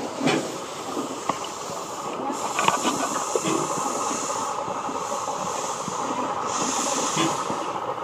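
Small steam locomotive standing at the platform and hissing out steam, a steady hiss that swells and fades in places, with a few faint clicks and knocks.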